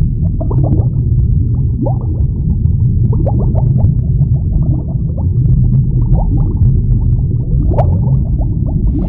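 Sound-designed underwater ambience: a steady low rumble with many small bubbles gurgling and popping.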